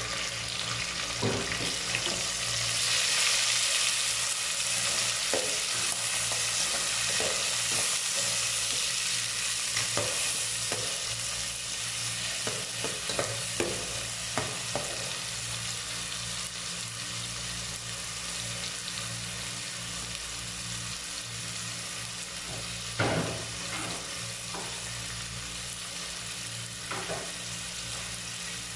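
Garlic, onion, tomato and ginger sizzling in hot oil in a stainless steel pot while a metal spatula scrapes and clicks against the pot as they are stirred. The sizzle is strongest a few seconds in and slowly dies down.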